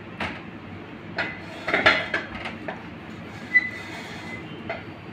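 Rolling pin knocking and clattering on a stainless-steel worktop while pizza dough is rolled out: a few scattered knocks, a quick cluster a couple of seconds in, and a sharp knock with a brief metallic ring past the middle, over steady background noise.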